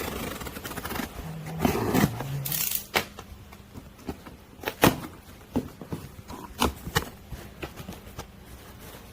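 Outemu mechanical keyboard switches being pressed: a string of irregular sharp clacks, with a short rustling, scraping noise about two seconds in.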